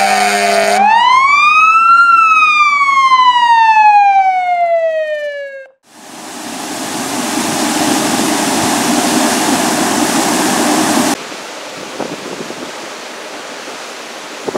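A siren rises and then slowly falls, cutting off about six seconds in. Then water gushing from a broken water main, a loud steady rush that drops to a quieter rush about eleven seconds in.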